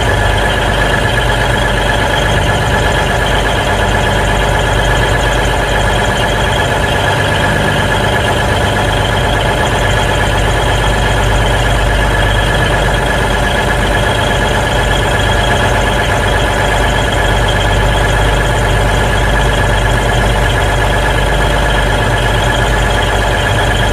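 Class 220 Voyager's underfloor Cummins QSK19 diesel engine idling steadily, a low drone with a steady high whine over it, heard close up at the underframe grille.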